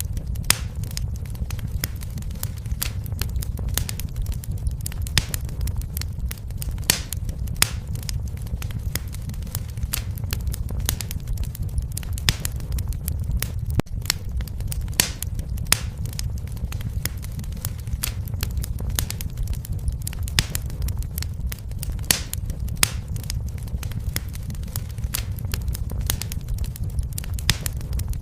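Fire in a fireplace crackling, with frequent sharp irregular pops and snaps over a steady low rumble of the flames.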